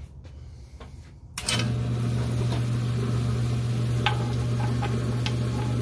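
Lapidary trim saw switched on about a second and a half in, its motor running steadily with a low hum and a hiss from the spinning blade. A few light clicks come later as the stone is set against the saw's metal table.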